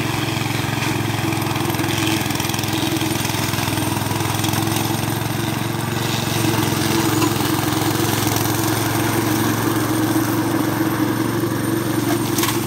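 Walk-behind brush cutter's 7 hp Asahi four-stroke petrol engine running steadily while the machine is pushed through thick scrub, its belt-driven blade cutting the brush.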